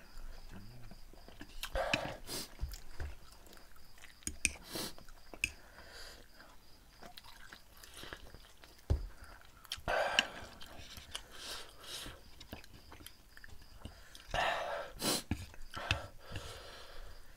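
Two people eating spicy instant noodles close to the microphone: wet chewing and slurping, with three louder bursts about two, ten and fifteen seconds in, and scattered sharp clicks.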